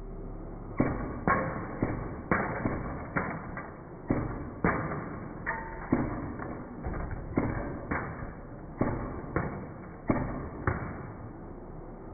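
A toy minigun firing a rapid string of small balls into a LEGO pirate ship: about twenty sharp cracks, roughly two a second and unevenly spaced, as the hits knock bricks and sails loose.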